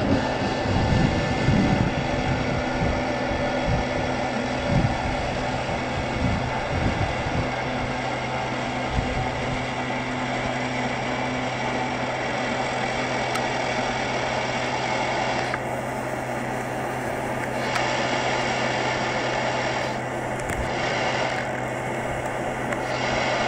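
A steady engine-like machine drone with a constant low hum and a high whine, from the power unit that works the Tu-144's retractable canard foreplanes as they are extended. Irregular low thumps of wind on the microphone come through the first several seconds.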